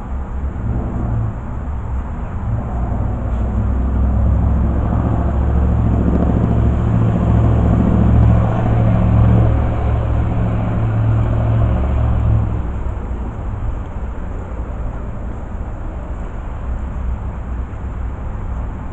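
A motor vehicle driving past: a low engine rumble builds to its loudest about eight or nine seconds in, then fades away a few seconds later, leaving steady background traffic noise.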